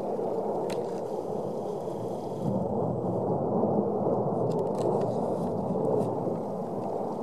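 Erupting vent of the La Palma volcano giving off a continuous low rumbling roar as lava and gas jet out, with a few faint cracks.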